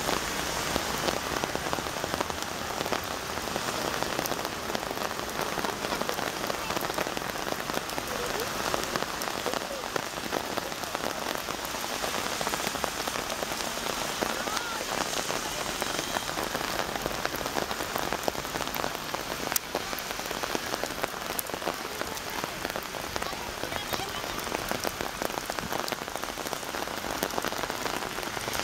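Heavy rain pouring onto pavement and road: a dense, steady hiss of countless drops splashing on wet surfaces, with one sharp tick about two-thirds of the way through.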